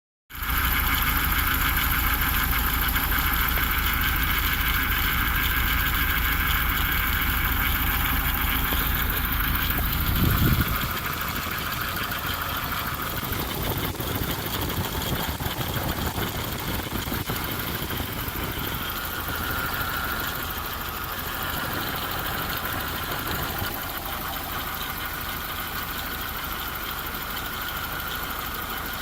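1987 Toyota Van engine idling, with strange noises that the owner wants diagnosed. A deep low rumble swells briefly about ten seconds in and then falls away, leaving a lighter, slightly quieter running sound.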